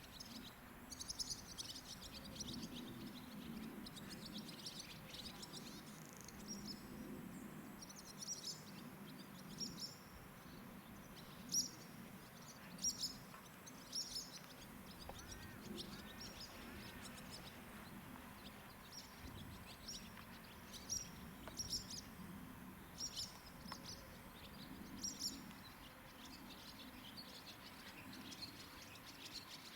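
Small birds chirping faintly: short, high chirps every second or so, over a low, steady background murmur.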